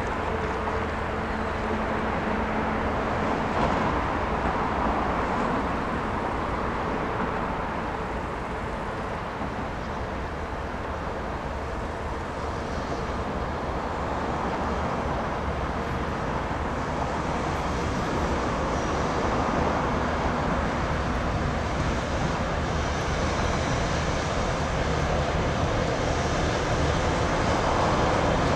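ChME3 shunting diesel locomotive, with its six-cylinder diesel engine, running steadily as it approaches slowly and grows a little louder.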